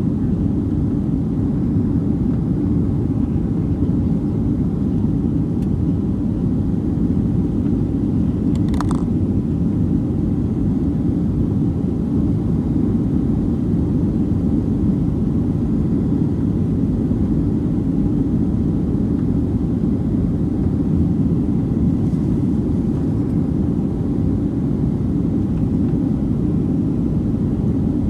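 Steady low cabin rumble inside a Boeing 737-900ER, the drone of its CFM56-7B engines and airflow, with a single brief click about nine seconds in.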